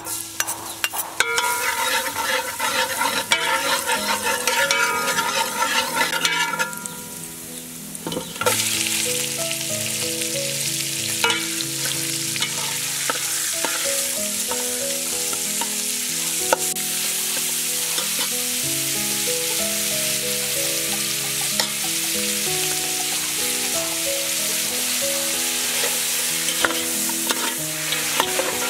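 Minced garlic sizzling in hot oil in a metal pot, with a ladle clinking and scraping against the pot. About eight seconds in, pork ribs go into the oil and a louder, steady sizzle takes over, with the ladle scraping now and then.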